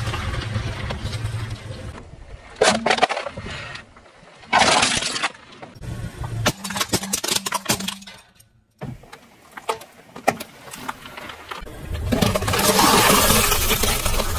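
A car's tyre rolling over and crushing objects one after another. A low car engine runs at first, then come sudden loud crunches and a run of sharp cracks of plastic breaking, with a longer loud crunching near the end.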